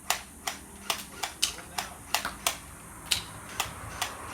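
Airsoft UZI firing a rapid string of single shots, sharp separate cracks about two to three a second at an uneven pace.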